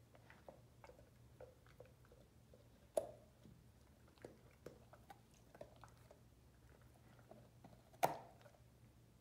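Great Dane puppy chewing and crunching a raw carrot: faint, irregular crunches, with two sharper, louder cracks about three seconds in and near the end.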